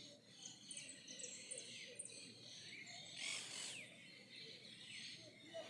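Birds singing with many quick, high, falling chirps, faint over a steady outdoor background, with a brief louder rush of noise about three seconds in.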